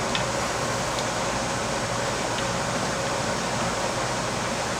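Outdoor air-conditioning unit running steadily, a constant rushing hum with a faint steady tone, and a few faint light clicks.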